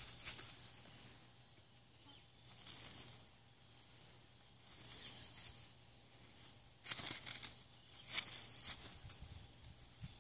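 Faint swishing rustles that swell and fade every second or two, with a few sharper clicks and rustles about seven and eight seconds in.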